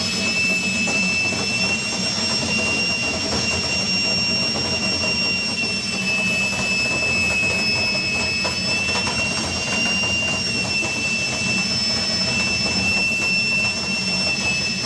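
Power drill running steadily, spinning a flexible nylon lint brush on rods up a dryer vent duct. A high motor whine shifts slightly in pitch a few times as the speed varies, over a rough rushing noise.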